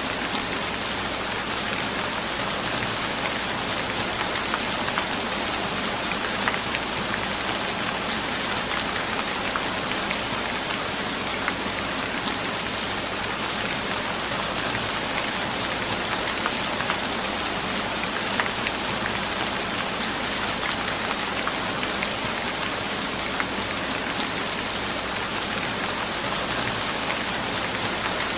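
Steady rain falling, an even hiss with many small drop ticks on a surface.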